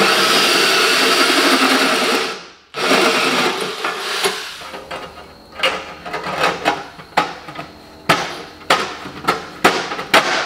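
Corded drill with a hole saw cutting through the steel ammo can, loud and steady, breaking off about two and a half seconds in. Then the stainless wire mesh rattles and knocks against the can's sides in a string of sharp clicks as it is pushed down into place.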